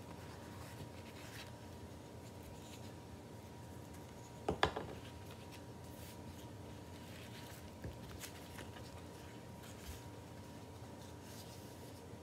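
Banana leaf rustling and rubbing as it is rolled around the glutinous rice mixture on a wooden board and its ends are folded by hand. A couple of sharp knocks come about four and a half seconds in.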